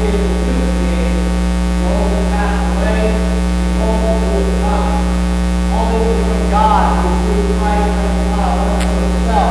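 Loud, steady electrical mains hum, a low buzz running under everything, with faint voices audible beneath it.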